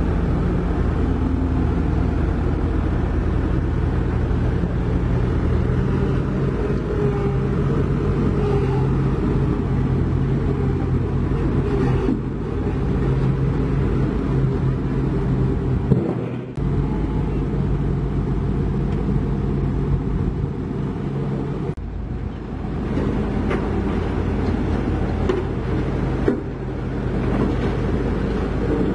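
Heavy diesel engine of a Dynapac CA302D padfoot soil compactor running steadily with a low hum, broken abruptly a few times.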